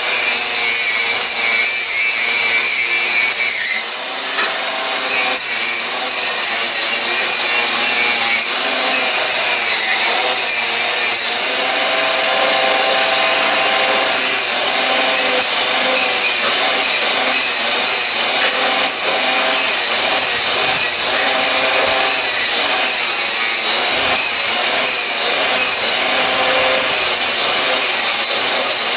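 Angle grinder grinding leftover bits off a steel exhaust pipe, running continuously with a steady whine from the disc and motor; it eases off briefly about four seconds in, then bites in again.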